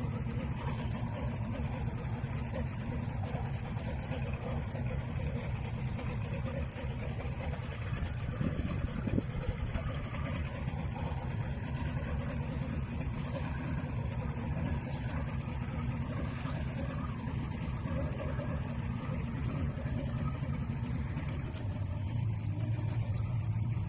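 A boat's engine running steadily, a low hum that strengthens a little near the end.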